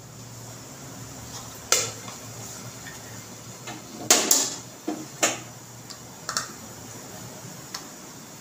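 Scattered clinks and knocks of kitchen dishes and utensils, about half a dozen short separate strikes, the loudest around four seconds in, over a faint steady background hum.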